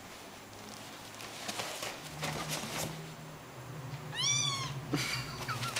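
A kitten meows once, about four seconds in: a short call that rises and then falls in pitch. A fainter short call follows near the end, with soft rustles earlier on.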